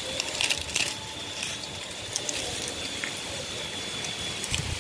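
Rustling and light crackling of bamboo leaves and stems being brushed and handled, with a cluster of small clicks and snaps in the first second and a few more scattered after.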